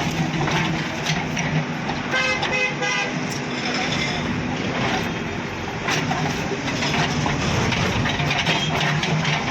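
Heavy diesel engine of a backhoe loader running steadily, with a vehicle horn sounding briefly in short broken toots about two seconds in.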